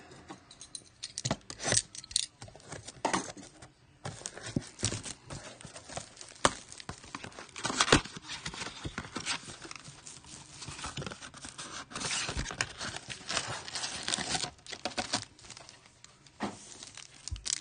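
A cardboard trading-card blaster box being torn open by hand, with the wrapped card packs inside crinkling as they are handled, and scattered taps and clicks throughout.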